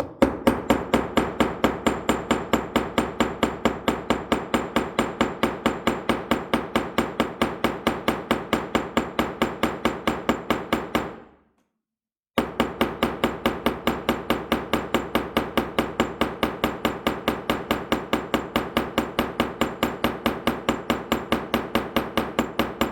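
Small cross peen hammer tapping with its flat face to peen the rivets of a pocket knife: light, rapid strikes, about four or five a second, each with a short metallic ring. The tapping stops for about a second roughly halfway, then carries on at the same pace.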